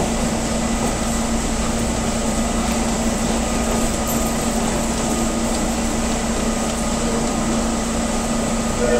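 Steady hum of a Sotetsu 21000 series electric train standing at an underground platform, a constant drone with a steady mid-low tone over a wash of station noise.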